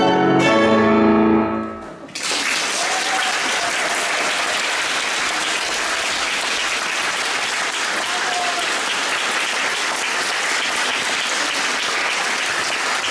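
Violin and piano hold the last chord of the piece, fading out at about a second and a half in. Audience applause starts about two seconds in and goes on steadily.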